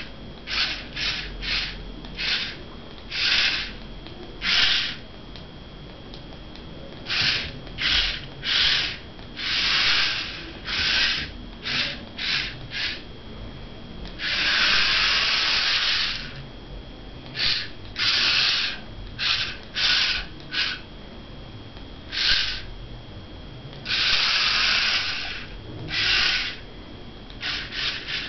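Small DC motors of a homemade four-wheel-drive RF remote-control car running in short spurts as it is driven, a high whir lasting from a fraction of a second to about two seconds each time. The longest runs come about halfway through and near the end.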